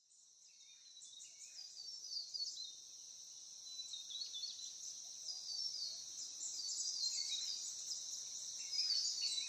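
Nature soundscape of a dense, high-pitched insect chorus with many short bird chirps over it, fading in over the first couple of seconds.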